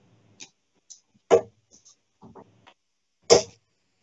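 Steel-tip darts striking a Winmau Blade 5 bristle dartboard: two sharp thuds about two seconds apart, with a few faint clicks between them.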